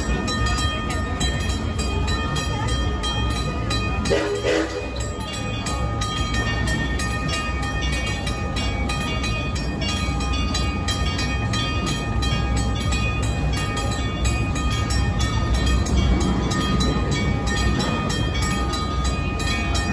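Railroad crossing signal bell ringing in a rapid, even series of strikes, the warning that a train is approaching the crossing. A short pitched sound stands out about four seconds in.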